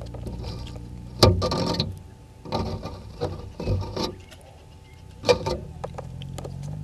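Vervet monkeys handling the camera housing close to the microphone: a sharp knock about a second in, followed by scratchy scraping rustles in several short bouts, then another knock near the end.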